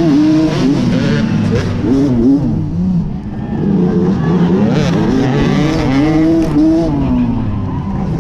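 Off-road dirt bike engine racing at close range, its pitch climbing and dropping over and over as the throttle is worked.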